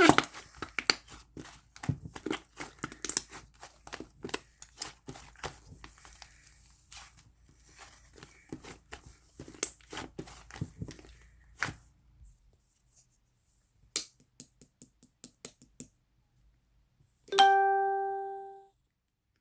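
Slime being stretched, pressed and pulled by hand, making rapid crackling, clicking and tearing sounds that thin out to a few scattered clicks. Near the end a single bell-like chime rings and fades over about a second.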